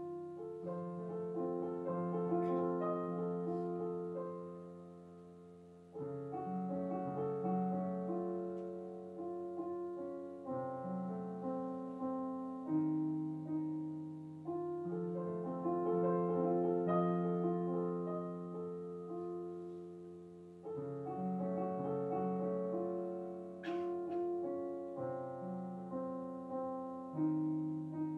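Solo piano music: slow chords and a melody, the notes struck and left to ring and fade, with a new phrase every few seconds.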